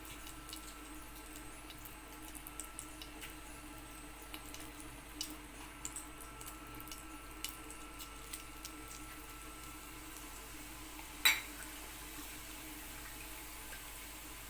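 Cumin seeds spluttering in hot sesame oil in an iron kadai: scattered small crackling pops over a low steady hiss. About eleven seconds in there is one louder, sharp pop.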